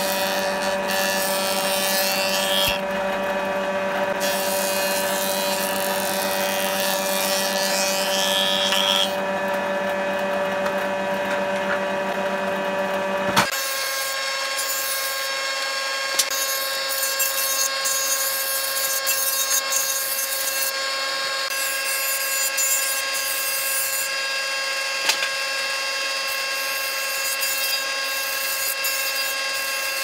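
Jointer running with a steady motor whine while rough pallet boards are fed across its cutterhead. The planing makes a coarse cutting hiss in stretches that stops between passes, and the machine's tone changes abruptly about 13 seconds in.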